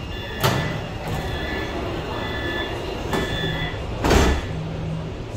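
Metro car's sliding passenger doors closing. Warning beeps repeat about once a second, with a sharp click about half a second in and another around three seconds, and the doors thud shut about four seconds in.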